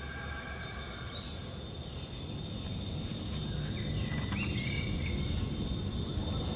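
Evening ambience of crickets chirping steadily, with a few short chirps and a low rumble that grows louder.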